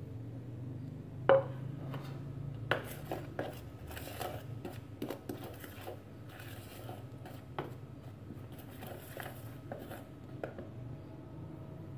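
A metal fork stirring and scraping flour into creamed butter and sugar in a plastic bowl, with irregular clicks and scrapes against the bowl. A sharp knock about a second in is the loudest sound.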